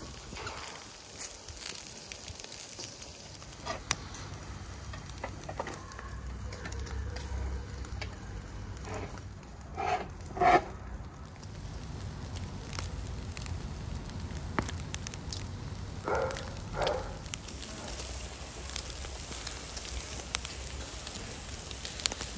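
Charcoal fire crackling and popping, with food sizzling on skewers over the coals. Twice a pair of short calls cuts in, the louder pair about ten seconds in and the other about sixteen seconds in.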